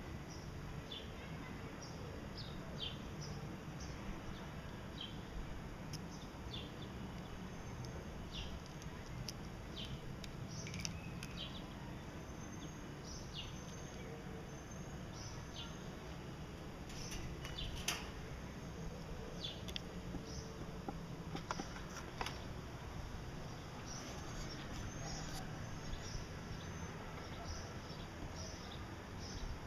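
Gouldian finches giving short, scattered chirps over a steady low background hum, with a brief louder click about 18 seconds in.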